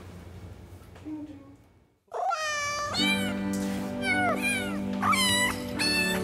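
Mobile phone ringtone of repeated meowing cat sounds over a music backing, starting about two seconds in after a quiet moment.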